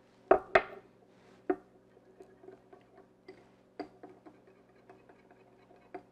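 Small wire whisk clinking and scraping against a small glass bowl while stirring cocoa powder and water into a paste. There are a few sharp clinks in the first second and a half, then a run of light, irregular ticks.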